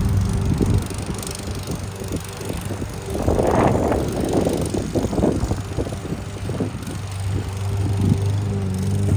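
Lawn mower running as it is pushed across the grass, with a steady low hum and a continual rattling clatter. A louder, rougher burst of cutting noise comes about three seconds in and lasts a few seconds, while the hum drops back in the middle and returns near the end.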